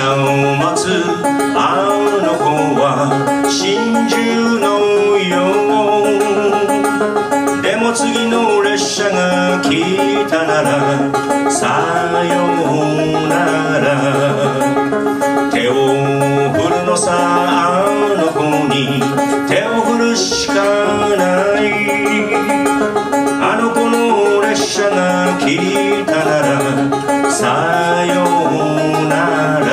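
Banjo played solo with steady picking: a running melody over a repeating bass-note pattern.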